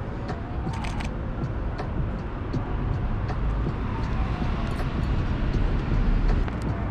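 Steady low rumble of city traffic, with a few sharp clicks about a second in.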